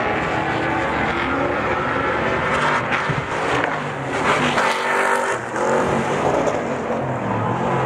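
Several Stadium Super Truck V8 racing engines revving hard at once, their notes rising and falling as the trucks accelerate and brake around the circuit. There are louder surges about three and five seconds in.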